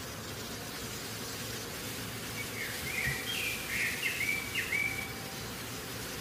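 A bird chirping a brief run of quick, sliding notes over a steady background hiss.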